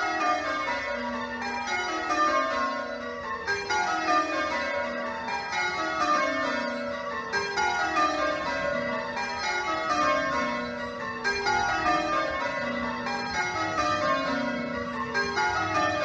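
Ring of eight church bells (back six cast by Warner in 1913, two trebles added) being rung full circle in change ringing, the strokes running down the scale from treble to tenor in one row after another, about one row every two seconds.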